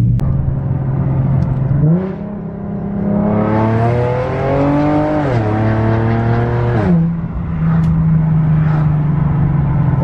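Infiniti G37's V6 engine accelerating, heard from inside the cabin: the revs climb, drop sharply twice, about five and seven seconds in, as the automatic shifts up, then hold steady.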